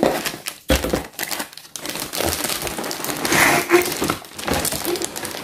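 Cardboard packaging rustling and scraping as a boxed toy building is slid and worked out of its outer box, with a sharp bump a little under a second in.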